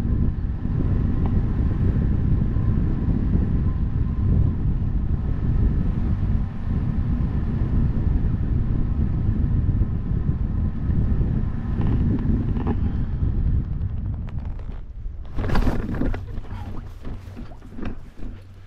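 Wind buffeting a GoPro Max camera's microphone during a parachute canopy descent, a steady low rumble that dies away about fourteen seconds in. Then a short loud burst of scuffing and rustling as the skydiver touches down on grass and the canopy collapses.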